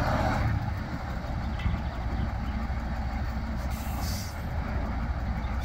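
Tatra 815 dump truck's air-cooled V10 diesel running steadily with its tipper body raised, unloading soil onto a heap. A short hiss about four seconds in.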